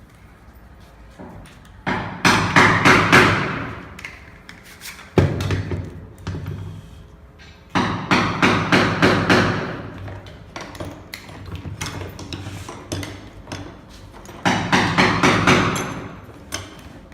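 Quick knocks on wood in three bursts of several strikes each, with a lone sharp knock between the first two bursts.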